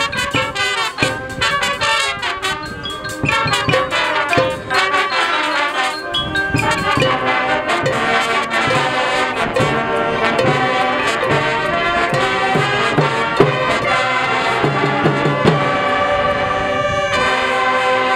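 High school marching band playing its field show: brass carrying the music over percussion, the full band growing louder about three seconds in.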